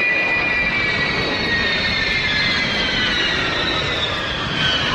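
Ilyushin Il-76 four-engine jet transport on its takeoff run, lifting off at full power. A steady loud jet roar runs under a whine that falls slowly in pitch as the aircraft passes.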